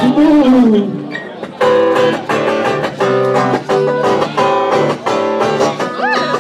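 Live guitar strummed in a steady rhythm of chords. The last sung note of a line slides down and fades before the strumming settles in.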